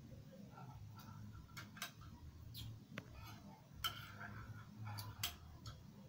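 Spoon clinking and scraping against a ceramic plate in scattered sharp clicks, the loudest about four and five seconds in, over a low steady hum.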